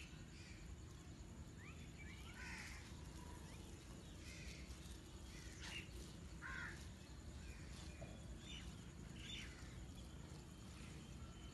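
Faint outdoor background with a steady low hum and scattered short bird calls and chirps, some rising or falling, spread through the whole stretch.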